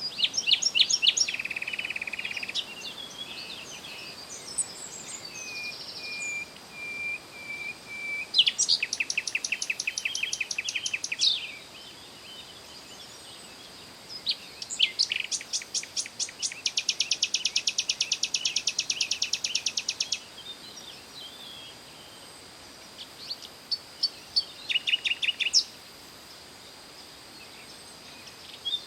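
Songbird singing in phrases of rapid, high trilled notes, each lasting a few seconds, with short pauses between them. A faint steady high tone runs underneath throughout.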